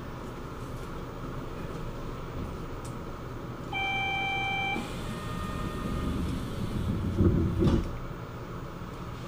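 Door-closing beep of a Port Liner automated train standing at a station: one electronic beep lasting about a second, then a fainter tone. The doors then slide shut, ending in two heavy thumps near the end, over the steady hum of the stopped car.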